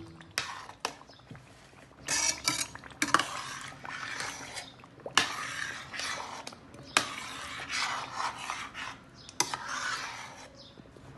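A metal spoon stirring thick tomato stew in a metal pot. The spoon scrapes through the stew and knocks against the pot's side about every two seconds.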